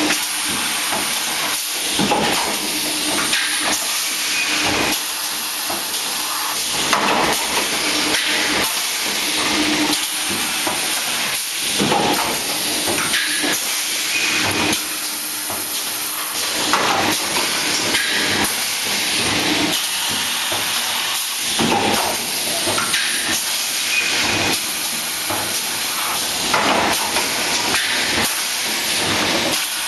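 PP bottle making machine running: a steady hiss of compressed air from its pneumatic cylinders, with a mechanical knock about every two and a half seconds as the stations cycle.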